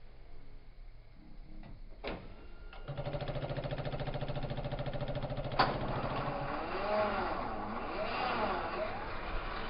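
Off-road vehicle engine: after a quiet start and a click, it runs with a rapid even pulse from about three seconds in, then its pitch rises and falls repeatedly as it revs.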